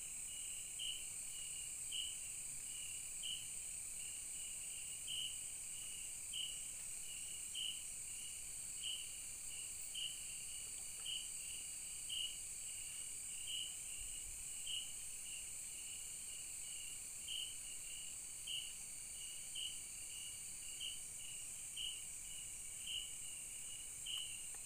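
Night-time forest insect chorus: a steady high-pitched shrilling with a short chirp repeating about once a second.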